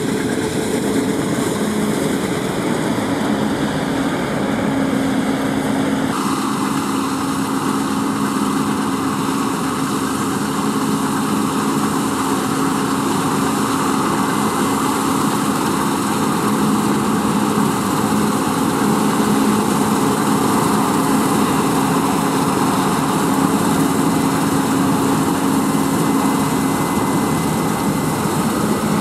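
Case IH Axial-Flow combine harvester running under load while cutting oilseed rape: a steady engine drone with the whirr and rush of the header and threshing machinery. It grows a little louder as the machine comes closer, and the tone shifts abruptly about six seconds in.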